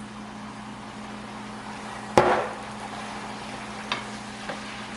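A sharp clatter about two seconds in, a soy sauce bottle's cap dropping, followed by a couple of light clicks, over a steady low hum.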